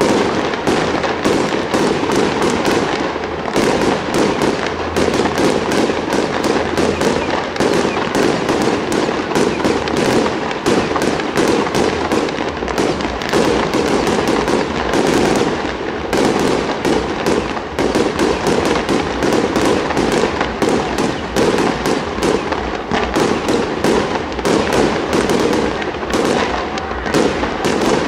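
Fireworks display with aerial shells bursting into crackling stars over ground fountains: a dense, unbroken crackle of rapid small pops.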